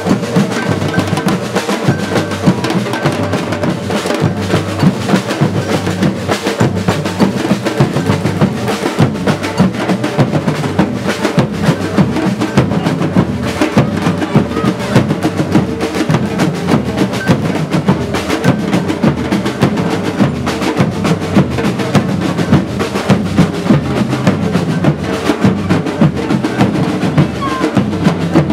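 Batucada street drum group playing a loud, steady, driving rhythm on snare and bass drums, with dense drumstrokes that never pause.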